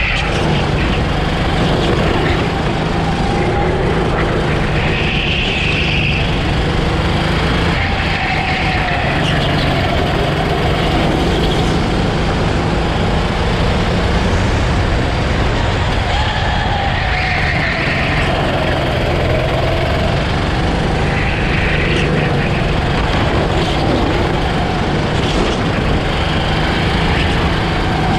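Rental go-kart engine running at speed on a lap, its note rising and falling through the corners, over a constant rushing noise.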